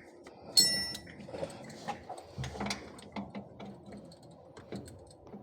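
Scattered metallic clinks, taps and knocks of hand work on a truck air valve, with a short ringing metallic tone about half a second in.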